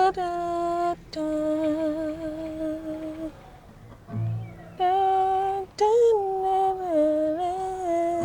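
A woman humming a slow wordless tune in long held notes, with a pause in the middle that holds a short low thump.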